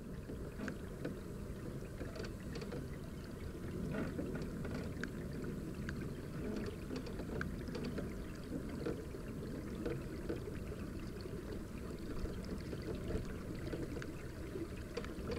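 Water lapping and trickling against a kayak hull under way, with scattered small ticks over a steady low rumble.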